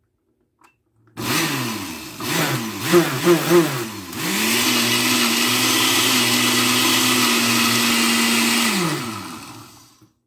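Oster countertop blender grinding mint leaves, tomato and raw mango into chutney. For the first few seconds the motor surges and slows several times as the blades chop the chunky load. It then runs at a steady pitch for about four seconds and winds down with a falling pitch near the end.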